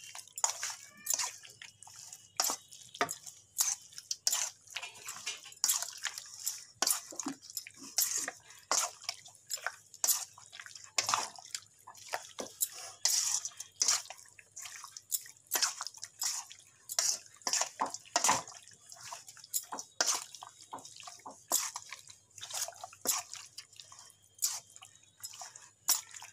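A hand squeezing and mixing raw chicken pieces through a wet yogurt-and-spice marinade in a steel bowl: irregular wet squelches and clicks, several a second.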